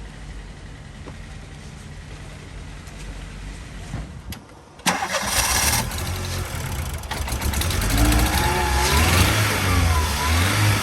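A vehicle engine rumbling low, then, after an abrupt change about five seconds in, a louder engine with a hiss over it. In the last few seconds the engine's pitch rises and falls repeatedly as it revs.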